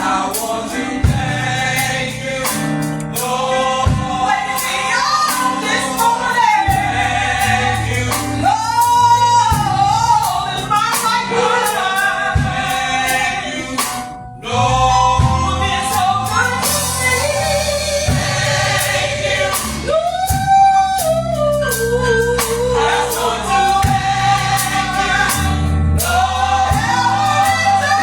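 Gospel choir singing with band accompaniment, the voices joined by bass and drums; the music drops out briefly about halfway through and comes straight back.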